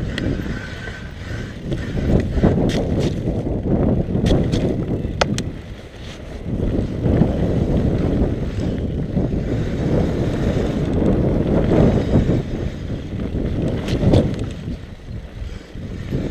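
Mountain bike descending a dirt trail: a steady rumble of knobby tyres on packed dirt and wind buffeting the microphone, with occasional sharp clicks and rattles from the bike.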